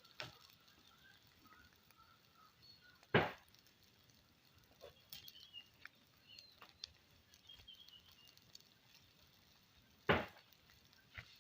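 Quiet outdoor ambience with faint short chirps, broken twice by a loud, sharp thud about seven seconds apart.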